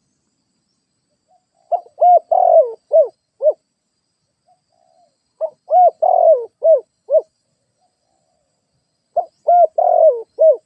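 Spotted dove cooing: three phrases of about five low, arching coos each, the middle coo longest, spaced about four seconds apart.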